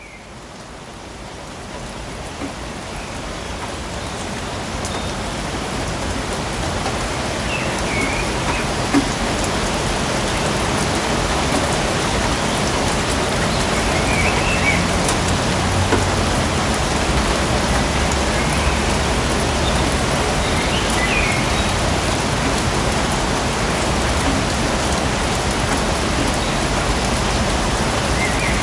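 Steady rainfall pattering on surfaces. It swells in over the first several seconds, then holds level, with a few brief high chirps now and then.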